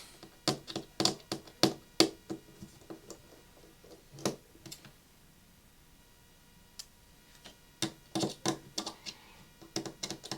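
Repair tools clicking and tapping against an iPhone 6 Plus's internals as its motherboard is taken out: a quick run of sharp clicks, a quiet spell in the middle, then another cluster of clicks near the end.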